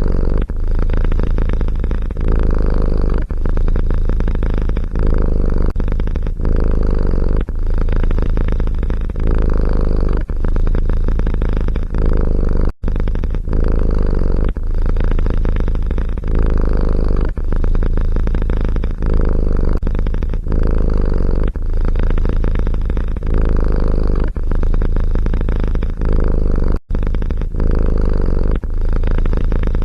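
A domestic cat purring loudly and steadily, the purr swelling and easing in a regular cycle about every second and a half with its breathing. It cuts out completely twice for an instant, about 13 seconds in and again near the end.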